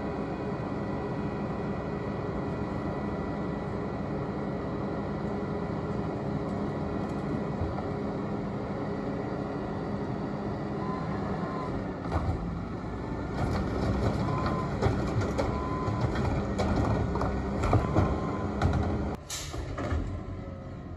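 Garbage truck engine running steadily at low speed. About twelve seconds in, louder irregular clatter and knocks start as the recycling is collected, and near the end there is one short, sharp air-brake hiss.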